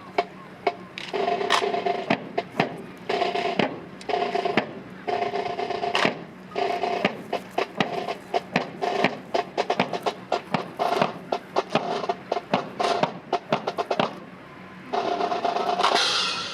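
Snare drums playing a marching cadence of sharp strokes and short rolls, with a brief pause and a longer roll near the end.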